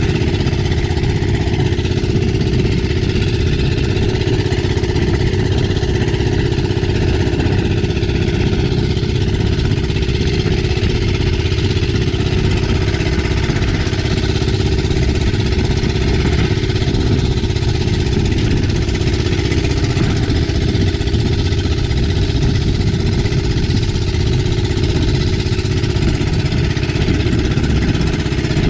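Small engine of a motorized outrigger fishing boat running steadily at trolling speed, with water splashing off the hull and outriggers and wind across the microphone.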